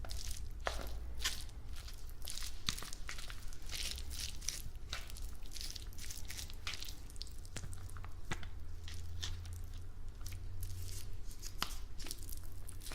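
Close-miked eating: irregular crunching and crackling as food is bitten and chewed, over a steady low hum.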